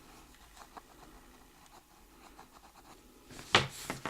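Faint, irregular scratching and rubbing on a plastic Blu-ray case as dirt stuck to it is scraped at by hand. A sharp click about three and a half seconds in, and a smaller one just after, as the case is handled.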